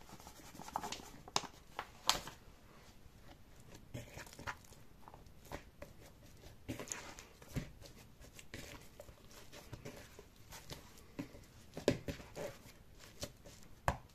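Hands kneading soft, sticky yeast dough in a plastic bowl: irregular squelches and slaps, with a few sharper knocks of the bowl.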